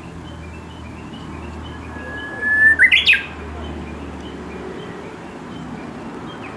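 Japanese bush warbler singing one 'hō-hokekyo' phrase about two seconds in: a long steady whistled note followed by a quick, rising flourish of notes. Faint chirps from other birds continue around it.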